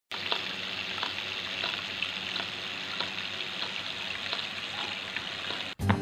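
Water from a small cement tabletop fountain pouring over stones and splashing into the basin below: a steady trickling hiss with small drips, which stops abruptly near the end.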